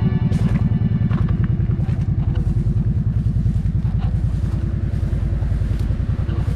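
Side-by-side UTV engine running steadily, its exhaust giving fast, even low pulses.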